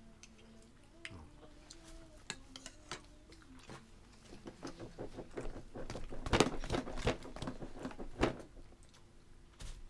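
A toddler's fork knocking and scraping on a plastic high-chair tray and divided plate: a flurry of clicks and knocks that builds to its loudest a little past the middle, with one last sharp knock near the end.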